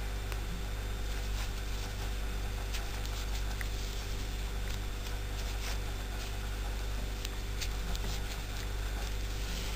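A steady low hum, with faint scattered light clicks and rustles from a metal crochet hook and yarn being worked into single crochet stitches.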